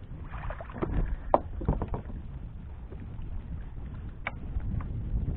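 Wind rumbling on the microphone, with a quick cluster of splashes and knocks in the first two seconds as a small largemouth bass is lifted from the water beside a kayak, and one sharp click a little after four seconds in.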